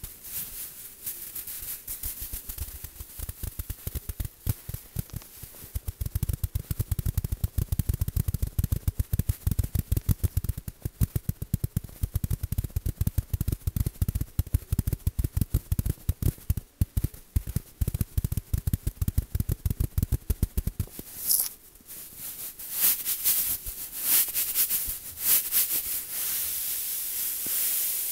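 Rapid, dense tapping, many taps a second, with deep thuds among the taps through the middle. About 21 seconds in the tapping stops and gives way to a rough, airy noise that swells and fades.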